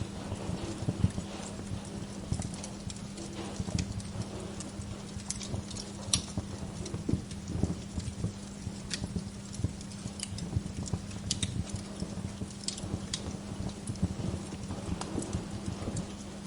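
Wood fire crackling, with sharp pops and snaps at irregular intervals over a soft low rush and a steady low hum.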